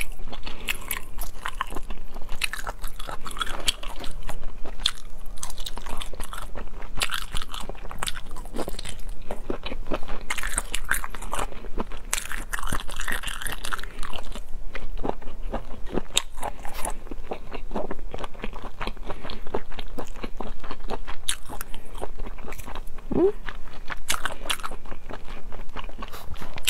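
Close-miked eating of spicy snails: biting and chewing the soft, slippery snail meat, with irregular wet clicks and smacks and a brief squeak near the end.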